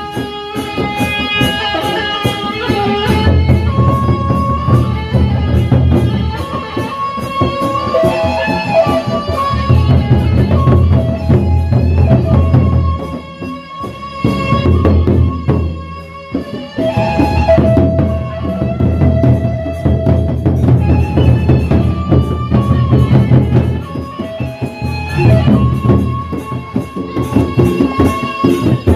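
Live gendang beleq ensemble playing: large Sasak double-headed barrel drums beaten with sticks in dense, rapid strokes under a held melody line that steps between pitches. The playing thins out briefly about halfway through, then returns at full strength.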